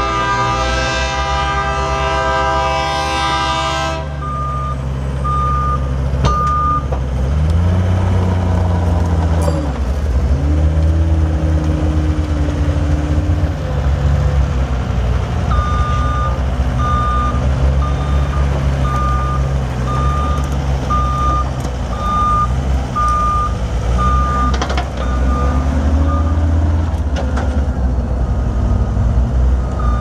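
John Deere 329D compact track loader's 3.0 L four-cylinder turbo diesel running, its revs rising and falling as the loader works. Its backup alarm beeps about once a second, briefly about four seconds in and again through the second half. A long, steady horn blast fills the first four seconds.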